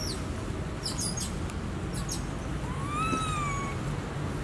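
Animal calls: two brief high chirps, then about three seconds in one drawn-out call that rises and then dips, over a steady low rumble.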